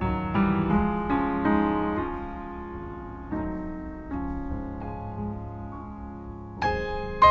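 Background piano music: struck notes and chords that ring and fade, with a louder chord near the end.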